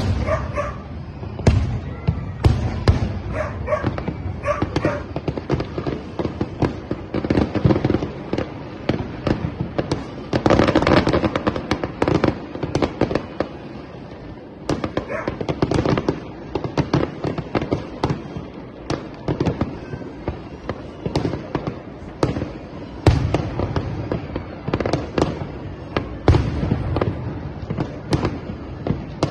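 Fireworks display: a steady run of shell bursts and bangs, with a dense stretch of crackling about ten seconds in.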